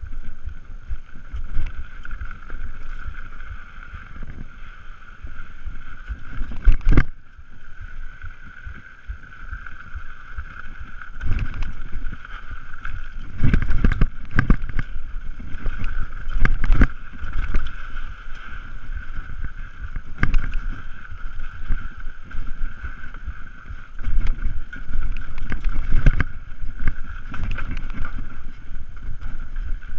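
Mountain bike descending a dirt trail, heard from a camera riding with it: rumbling wind and tyre noise, with a steady high buzz and sharp jolts and rattles from bumps, the hardest about a third of the way in and in a cluster near the middle.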